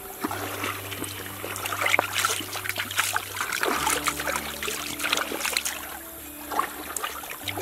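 Water splashing and dribbling as wet hands rub and rinse a large snakehead fish on a wet wooden chopping board, with many small irregular slaps and squelches.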